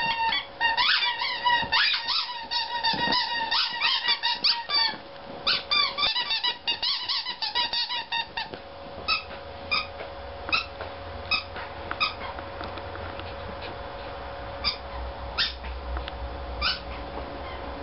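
Dog biting and squeezing a rubber squeaky toy, giving rapid, repeated high-pitched squeaks for about the first half. After that there are only short, isolated squeaks every second or so, over a faint steady hum.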